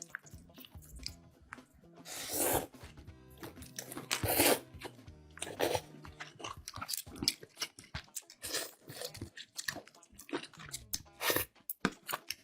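Close-miked eating sounds: crunchy food bitten and chewed, with several loud crunching bites and a run of small clicks between them, over soft background music.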